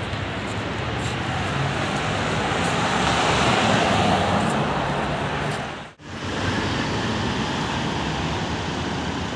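Road and traffic noise from a moving car: a steady rush of tyres and wind that swells about three to four seconds in and cuts out for a moment about six seconds in.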